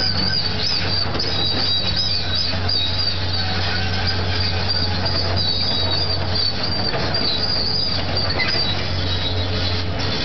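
Caterpillar 330L hydraulic excavator's diesel engine running steadily under digging load, with a continuous high, wavering squeal over the engine's low hum.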